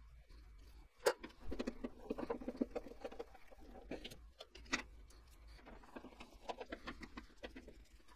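A screwdriver driving the mounting screws of an auxiliary fan's metal plate into a heater's steel cabinet: small metallic clicks and quick runs of ticking, with a sharp click about a second in and another near the middle.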